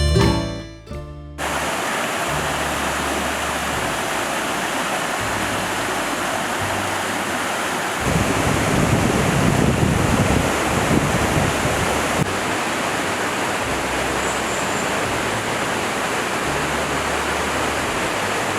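Mountain valley stream running, a steady rush of water that swells deeper and louder for a few seconds in the middle.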